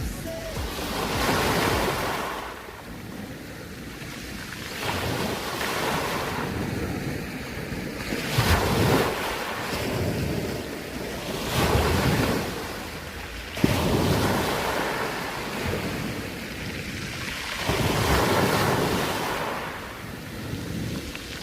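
Black Sea waves breaking on the shore, each wash swelling and fading every three or four seconds, with wind on the microphone. A single sharp click comes about two-thirds of the way through.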